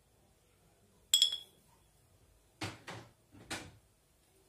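A sharp clink of kitchenware with a brief ring about a second in, then three short scraping, shaking sounds about half a second apart, as ground black pepper is added to raw chicken breasts.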